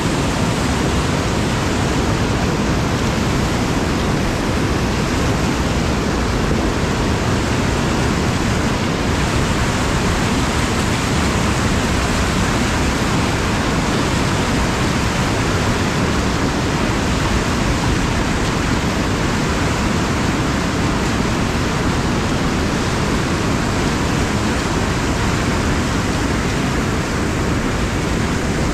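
Loud, steady rush of whitewater churning over a river ledge, heard from a kayak at water level in the rapid.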